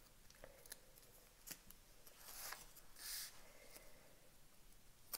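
Faint small clicks and two brief rustles, about two and a half and three seconds in, of the protective backing being peeled off 3D foam adhesive pads.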